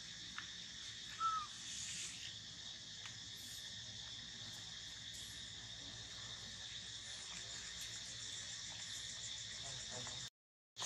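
Steady outdoor chorus of insects, a continuous high shrill buzz, with one short high chirp about a second in; the sound cuts out abruptly just before the end.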